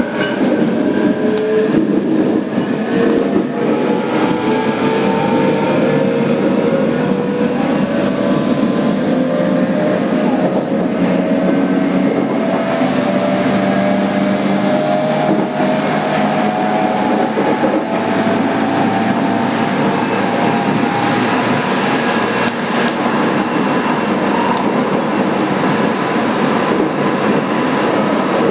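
In-car running sound of a JR Kyushu 817 series 3000 sub-series electric train at speed: steady rail and wheel rumble, with the traction motor and inverter whine slowly rising in pitch as the train gathers speed, the tones fading out in the later part.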